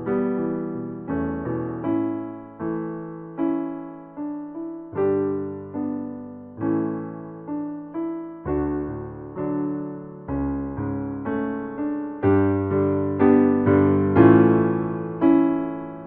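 Background piano music: a slow run of struck notes and chords, each dying away before the next.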